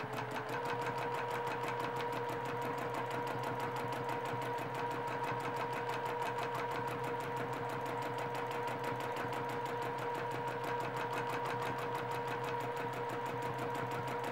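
Domestic sewing machine running steadily at speed for free-motion quilting, its motor whine stepping up slightly about half a second in and then holding one pitch, with fast, even needle strokes from the straight up-and-down stitching.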